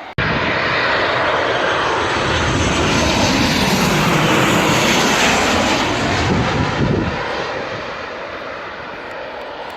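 Airliner passing low overhead near the runway. The engine noise cuts in suddenly and is loudest around five seconds in, where its pitch sweeps as the aircraft goes past. It then fades away.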